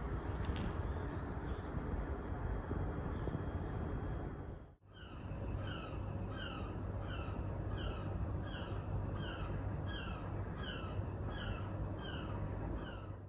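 A bird calling over a steady rushing background noise. The sound breaks off briefly just under five seconds in; after that the bird repeats a short falling chirp about twice a second.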